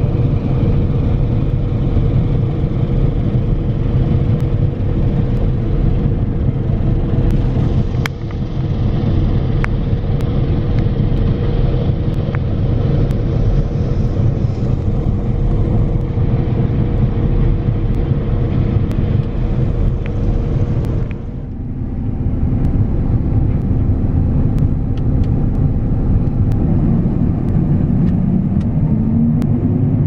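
Claas Lexion combine harvester running at work, heard from inside the cab: a steady low drone with a constant hum. About two-thirds through, the sound changes abruptly, and near the end a pitch rises.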